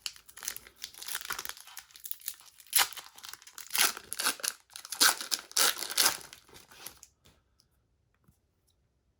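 A trading card pack wrapper being torn open and crinkled by hand, the crackling loudest in the middle and stopping about seven seconds in.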